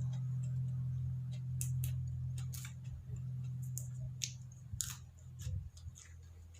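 Chewing a mouthful of crunchy raw vegetables with prawn and chili dip: sharp, crisp crunches and mouth clicks over a steady low hum that fades out near the end.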